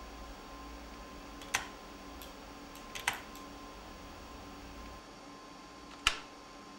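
Keys of a computer keyboard pressed one at a time with a single finger: slow, separate clicks, two of them in quick succession about three seconds in, over a faint steady hum.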